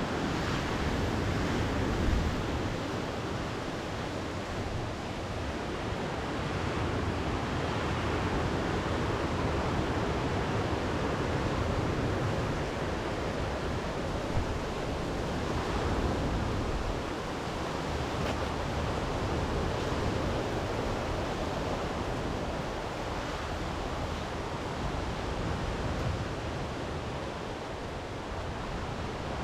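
Sea surf rolling onto a shore: a steady rushing that swells and eases every few seconds.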